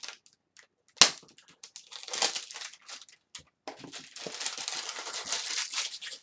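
Cardboard egg carton being opened and its packaging handled: a sharp snap about a second in, then crinkling and crunching of packaging.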